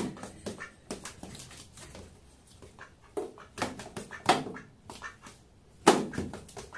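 A duck pecking at food held in a cat's paw: a string of short, irregular snaps and clicks, the loudest near the end.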